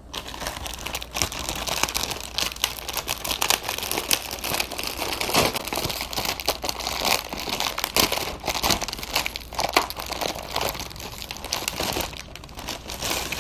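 Plastic cookie package crinkling and crackling continuously as it is handled and opened.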